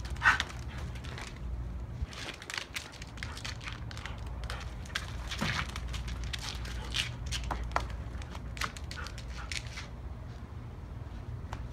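A husky dashing about and brushing through stiff palm fronds: an irregular run of rustling crackles and clicks over a steady low hum, with one louder snap right at the start.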